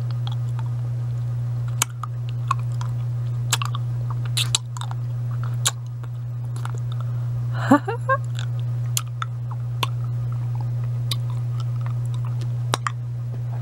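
Mouth sounds of someone eating a hard-candy lollipop: scattered sharp clicks and wet smacks, with a brief hummed sound about eight seconds in. A steady low hum runs underneath.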